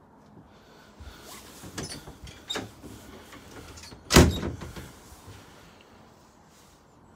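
Curved plastic doors of a caravan shower cubicle being handled and shut: a few light knocks and rattles, then one loud clack about four seconds in.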